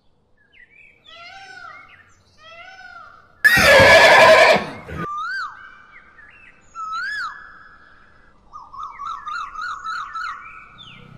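Horse neighing and whinnying: a string of pitched calls, with one loud, rough burst about three and a half seconds in and a quavering whinny near the end.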